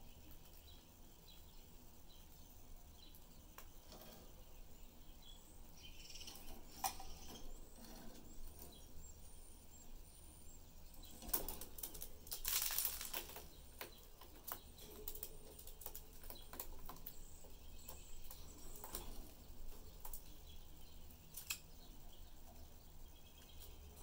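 Pet budgerigars in their cage: faint scattered chirps and light clicks of feet and beaks on bars and perches, with a brief louder rustling flurry of movement about halfway through.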